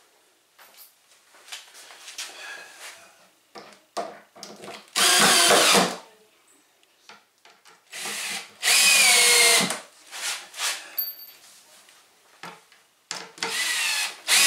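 Cordless drill-driver driving screws into soft pallet-wood boards in three main runs of a second or two, with short blips between. The motor whine dips in pitch as the screws bite.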